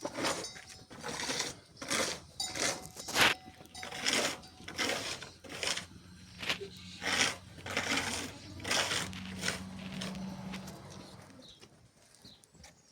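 A rhythmic run of short scraping or brushing strokes, a little over one a second, as of a tool worked back and forth over a rough surface. A faint low steady hum sits under the strokes in the middle and fades out near the end.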